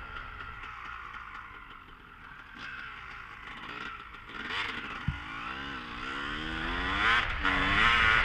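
A vehicle engine revving, its pitch rising and falling repeatedly and growing louder in the last few seconds, with a single sharp knock about five seconds in.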